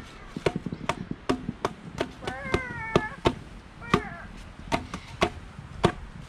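A run of sharp knocks or clicks, about two or three a second and unevenly spaced. A short, high, wavering voiced sound comes near the middle.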